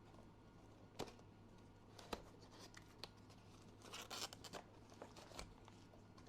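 Faint handling of a product box and its packaging being opened: a few sharp clicks or taps, then a brief scratchy tearing or rustling about four seconds in.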